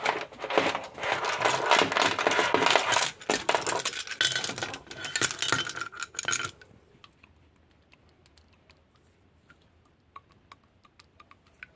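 Steel pistons with brass slipper shoes being handled and pulled from a hydraulic motor's cylinder block, clinking against one another and the metal parts. Dense clatter for about six and a half seconds, then only an occasional light click.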